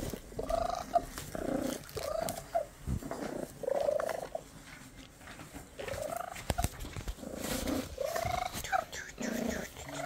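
Cat purring and giving a string of short meows, each rising and falling in pitch, while it is stroked, with a few light handling clicks.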